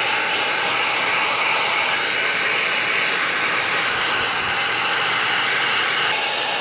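Electric heat gun running: a steady blower rush of hot air, used to shrink heat-shrink tubing over wire connections.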